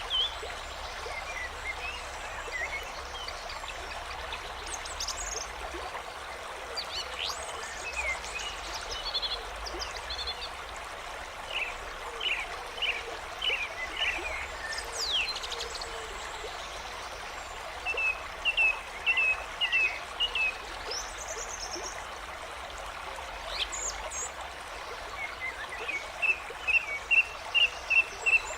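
Nature ambience of a flowing stream with songbirds calling over it. The birds sing in short runs of quickly repeated chirps, the loudest run coming near the end.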